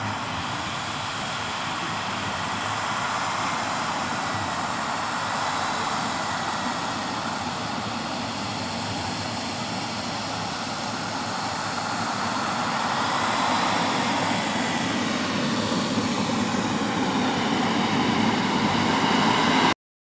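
Twin Lambert Kolibri model jet turbines of a 1:6-scale Pilatus PC-24 running as the model taxis: a steady jet rush with a high turbine whine whose pitch dips and rises slightly. It grows a little louder, then cuts off suddenly near the end.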